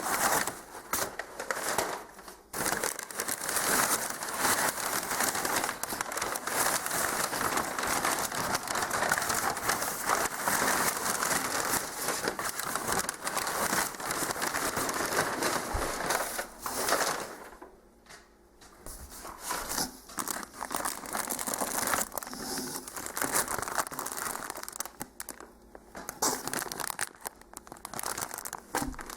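Packaging being handled and unwrapped, crinkling and rustling steadily for the first half, then in shorter bursts with pauses between.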